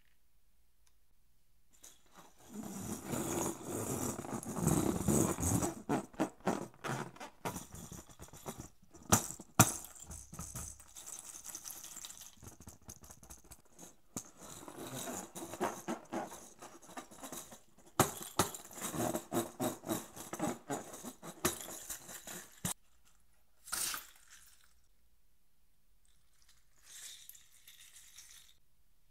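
A latex balloon filled with small plastic beads being handled and squeezed close to the microphone: the rubber rustles and the beads rattle inside in many short crackly bursts. Near the end, scissors cut into the balloon.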